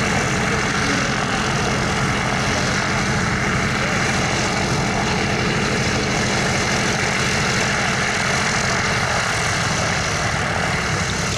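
Boeing B-17 Flying Fortress's Wright Cyclone radial engines running steadily at idle, a deep even drone with a constant low throb.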